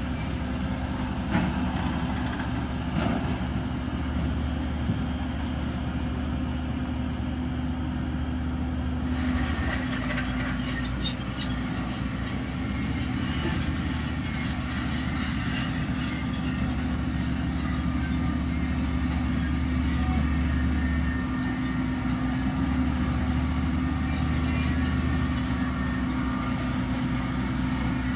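Diesel engine of a tracked earthmoving machine running steadily, with metal clanking and high squeals from its crawler tracks starting about a third of the way in.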